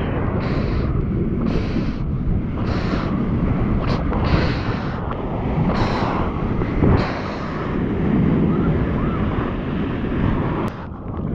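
Wind rumbling on the microphone over rushing, splashing seawater as a surfboard moves through breaking whitewater and along a wave. Hissy splashes come roughly every one to one and a half seconds.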